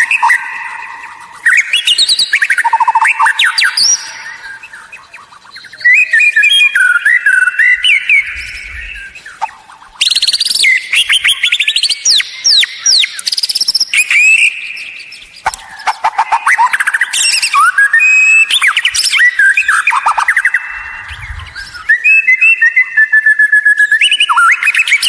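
White-rumped shama (murai batu) in full song: loud, rapidly varied phrases of clear whistles and fast trills, delivered in bursts of a few seconds with short pauses between.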